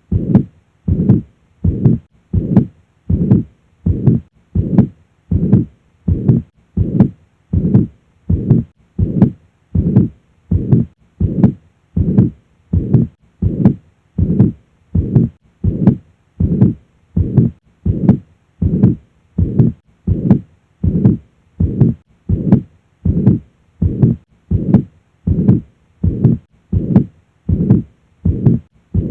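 Heart sounds heard at the cardiac apex with the murmur of mitral regurgitation (mitral insufficiency), typically a blowing holosystolic murmur. The beats repeat evenly, a little over one a second.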